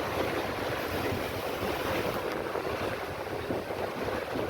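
Steady rush of wind and ocean waves heard from aboard a small boat at sea, with wind buffeting the microphone.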